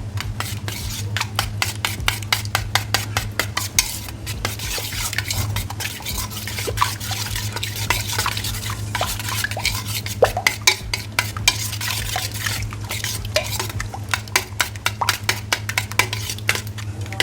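A utensil beating yogurt and gram-flour batter in a bowl for kadhi, with rapid repeated clinking and scraping strokes against the vessel, breaking up lumps. A steady low hum runs underneath.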